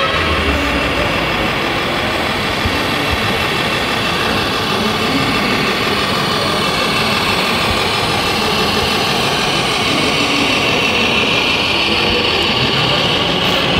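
RC model MAN heavy-haulage truck running slowly, its sound module playing a steady diesel truck engine, over a steady background din.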